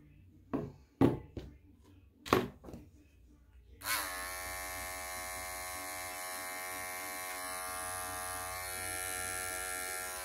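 A few sharp snips of grooming scissors, then a cordless pet clipper switched on about four seconds in and running with a steady buzz as it trims a small dog's paw, stopping near the end.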